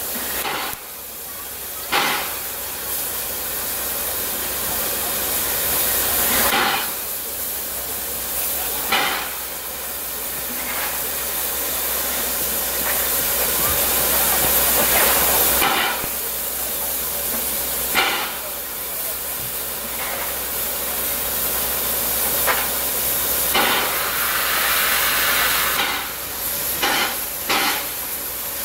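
Class 52 steam locomotive standing with steam up, hissing steadily, with a dozen or so short sharp knocks over the hiss.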